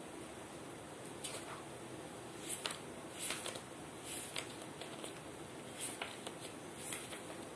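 Pages of a book being leafed through: short, dry paper rustles at irregular intervals, about one a second, over a steady low hiss.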